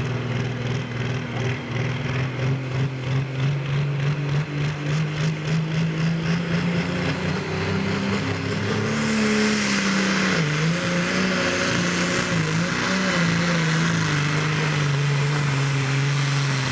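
Diesel engine of a red International Harvester pulling tractor running at the start line with a pulsing beat of about two a second. About nine seconds in it goes to full throttle and labours pulling the sled, the pitch sagging and recovering under load.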